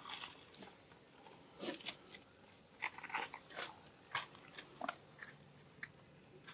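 Baby macaque gnawing on a dry stick and shuffling through dry leaf litter: faint, scattered crunches, crackles and small clicks at an irregular pace.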